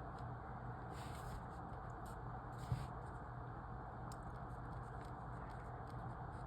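Steady low hum of room tone with a few short scratching or rustling sounds and one brief tap a little under three seconds in.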